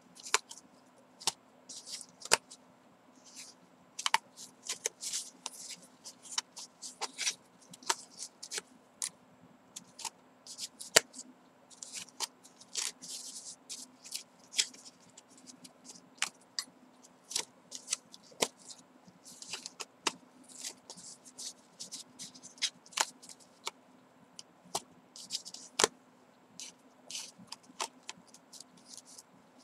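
Yarn strands being pulled out of and snapped into the notches of a cardboard braiding wheel: irregular light clicks and short scratchy rustles of fingers and yarn on cardboard, over a faint steady hum.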